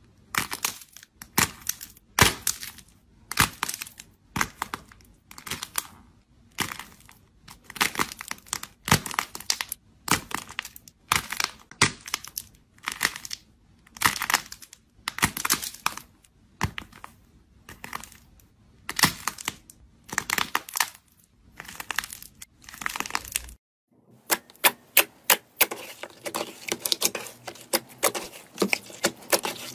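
Balls of purple slime squeezed between the fingers, giving a crackling crunch with each press, roughly one every second. Near the end the sound changes to glossy slime being stretched and pressed, with fast little popping clicks.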